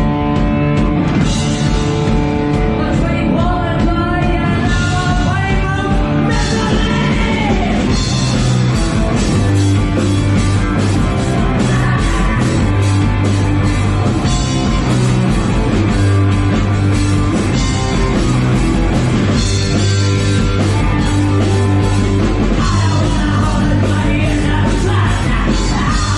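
Punk rock band playing live, loud and steady, with a singer yelling over the band.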